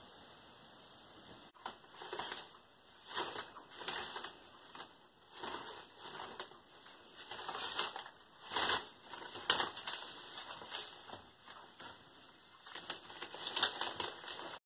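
Newspaper pages rustling and crinkling in irregular bursts as the large sheets are handled and turned.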